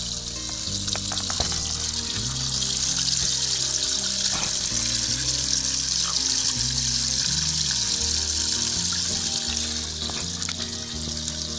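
Water jetting from a boat livewell's aerator spray head into the foaming well, a steady hiss, with background music carrying a bass line.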